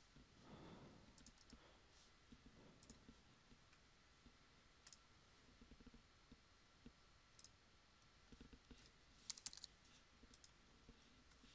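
Near silence with faint, scattered computer mouse clicks, and a quick run of about three keystrokes on a computer keyboard a little after nine seconds in.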